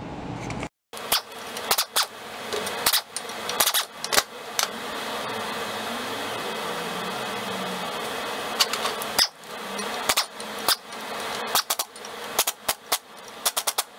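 Pneumatic impact wrench driving the centre bolt of a puller to draw a hub off a shaft. It runs in bursts, with sharp metal clinks and knocks from the puller and tools in between.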